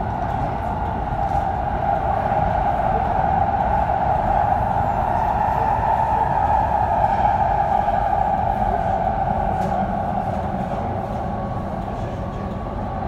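AnsaldoBreda driverless metro train running through a tunnel, heard from inside the car: a steady rumble with a droning tone that grows louder through the middle and eases off toward the end.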